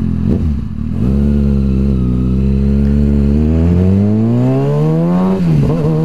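Kawasaki ZX6R 636 inline-four sport bike engine through a full M4 aftermarket exhaust, accelerating hard. The revs climb steadily for about four seconds, then drop sharply on an upshift near the end and the engine pulls on in the next gear.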